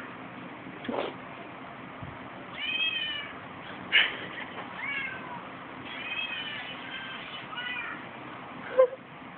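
A cat meowing again and again: about half a dozen short meows, each arching in pitch. A short sharp knock just before the end is the loudest sound.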